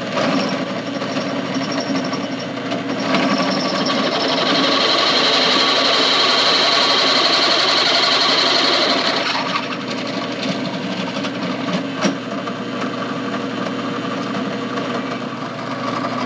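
Drill press running and drilling out a steel door hinge to pin size. A bright, high cutting sound rises over the motor hum from about 4 s in and eases off near the middle, while the motor runs on.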